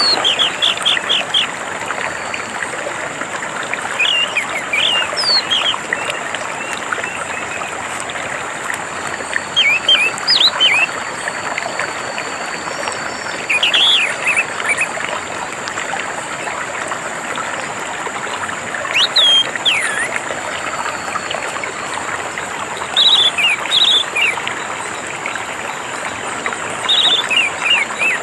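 Orange-headed thrush (anis merah) singing short, quick, warbled phrases every few seconds over steadily running, trickling water.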